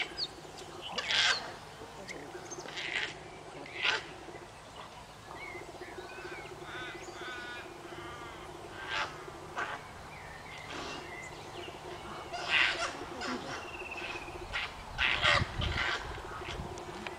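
Wild koalas scuffling in a eucalyptus tree: repeated short, harsh squeals from the female as she fights off the male, with wavering bird calls in the background.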